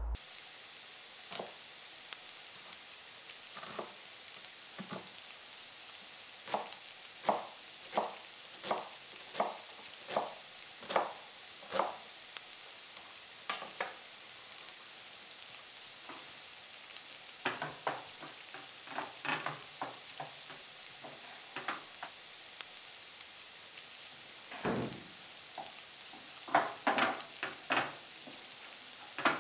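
Vegetables sizzling in a frying pan on a gas hob, a steady hiss, with runs of sharp knocks from a knife chopping onion on a cutting board.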